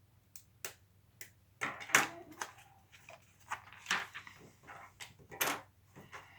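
Plastic Lego Technic pieces clicking and clattering as they are handled and snapped together, in irregular sharp clicks, the loudest about two seconds in and again near the end.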